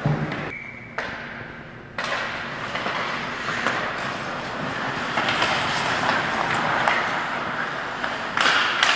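Ice hockey rink sound: a steady scraping hiss of skates on the ice, echoing in a large arena, which gets suddenly louder about two seconds in. A few sharp stick-and-puck knocks come near the end.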